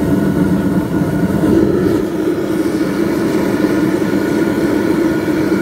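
Homemade drum furnace firing for melting copper: a loud, steady rushing noise with a low hum, unbroken throughout.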